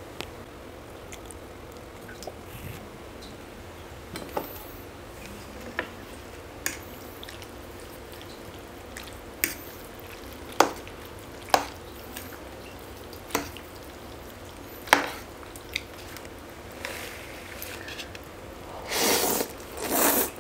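Close-miked eating: sharp, wet mouth clicks and smacks of chewing, scattered every second or two, then two longer, louder slurps near the end.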